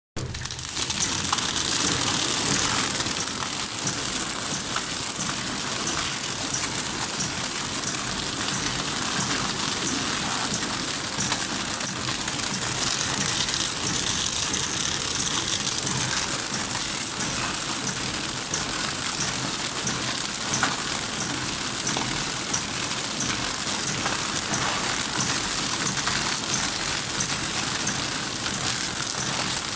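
Flow-wrap packaging machine with travelling sealing jaws running steadily: a constant mechanical clatter with a high whine and regular clicks about twice a second.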